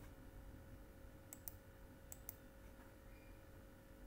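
Computer mouse clicking faintly: four short clicks in two quick pairs, over a low steady hum.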